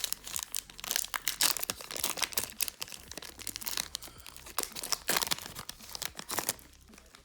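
Foil wrapper of a Pokémon trading card booster pack being torn open and crinkled by hand, a dense run of irregular crackles that tails off near the end.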